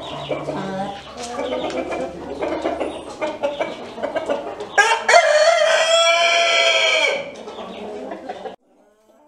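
Brahma hens clucking, with a rooster crowing once about five seconds in, a long call of a little over two seconds and the loudest sound here. The sound cuts off suddenly near the end.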